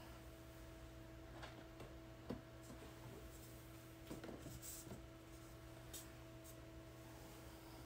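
Faint steady hum of a foam egg incubator's fan, with a few light taps and clicks as duck eggs and an egg candler are handled on its plastic tray; the sharpest tap comes a little over two seconds in and a small cluster follows around four to five seconds.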